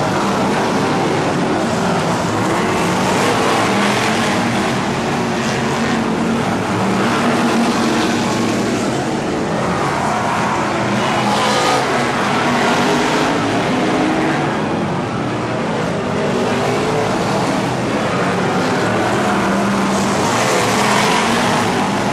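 A pack of BriSCA F1 stock cars racing on a shale oval, their V8 engines running loud and continuously, rising and falling every few seconds as cars pass.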